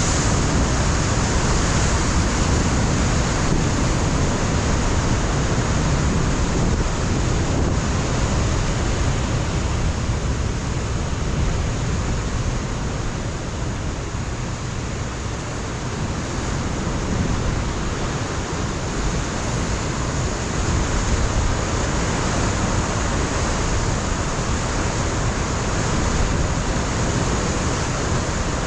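Ocean surf breaking against a rocky shore, a continuous rush of waves with wind buffeting the microphone; it eases a little about halfway through, then builds again.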